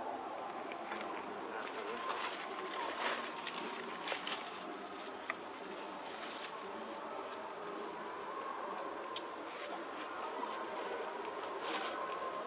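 Insects trilling and buzzing steadily in the forest, a constant high-pitched drone, with a few soft clicks here and there.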